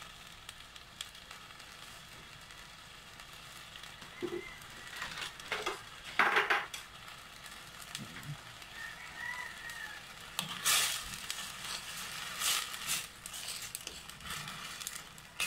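Cornstarch-thickened escabeche sauce of tomatoes and onions simmering in a stainless steel pan with a faint, low sizzle. From about ten seconds in come scattered scrapes and knocks of a ladle stirring it.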